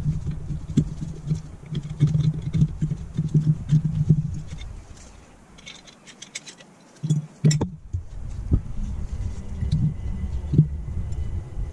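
Hand disassembly of a Zenith carburettor: a screwdriver turning screws in the cast carb body, with clicks, scrapes and clinks of small metal parts handled over a metal work plate, and one louder knock past the middle.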